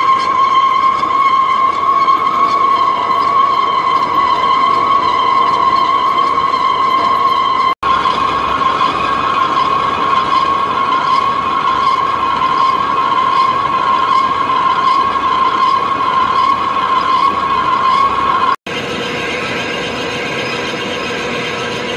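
DSG Type 21 lathe turning a long grade 5 titanium bar, running with a loud, steady high-pitched whine. It breaks off twice for an instant, and after the second break it runs quieter with a lower hum underneath.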